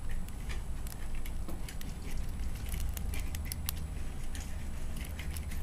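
Quick, irregular metallic clicks and scratches of a safety pin raking the pin tumblers of a Sargent six-pin lock, held under tension by a bent paper clip, over a steady low rumble.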